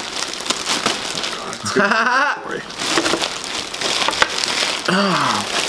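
White plastic poly mailer bag crinkling and being ripped open by hand, a steady crackle with sharper tearing snaps. Brief vocal sounds break in at about two seconds and again near the end.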